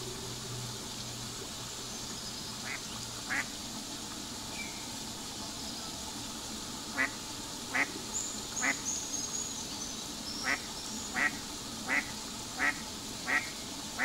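Australian wood ducks calling: two short calls about three seconds in, then a steady run of short calls, roughly one every three-quarters of a second, from about halfway on. Faint high chirps of small birds sound in the background.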